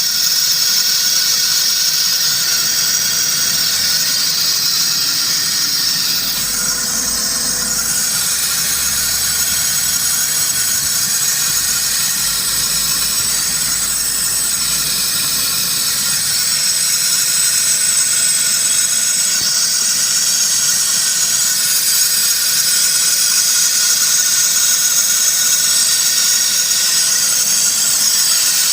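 Renault Sandero's hydraulic power steering making a loud, steady high-pitched hiss and whine: the noise that the owner takes for a fault in the power steering.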